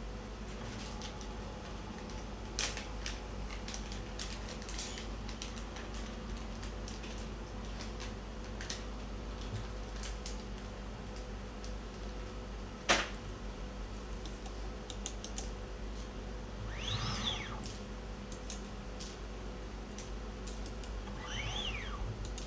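Small scattered clicks and taps of wires, a connector and a slim hand tool being handled at a workbench, over a steady low electrical hum. One sharper click comes about 13 s in, and two brief squeaks rise and fall in pitch near the end.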